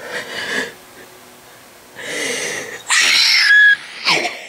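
A person screaming and squealing in excitement, in short outbursts, the loudest and shrillest about three seconds in.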